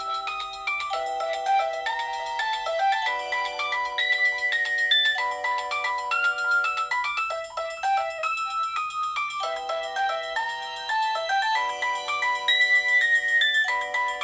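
Nokia 6230i ringtone playing a melody of clear, bell-like notes over held chords, several notes sounding at once.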